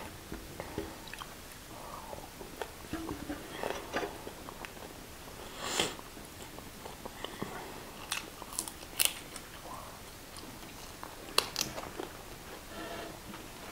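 Close-miked eating: chewing and slurping of instant noodles and biting into fried chicken, with scattered sharp clicks of forks on plates, the loudest clicks late on.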